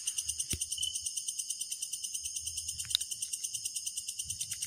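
Night insects, crickets, chirping in a fast, steady, high-pitched pulsing trill, with a short click about half a second in.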